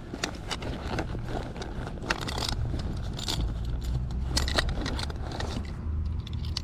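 Rattling, clicking and scraping handling noises, a quick irregular string of sharp clicks and jangles that thins out near the end, over a steady low rumble.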